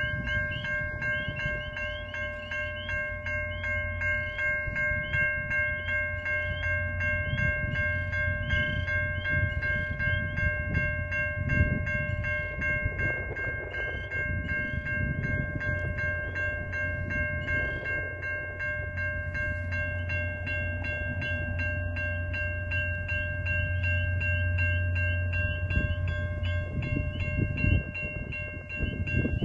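Railway level-crossing warning bell ringing in quick, even strokes, over the low rumble of a passenger train's cars rolling past the crossing and away. The rumble fades near the end.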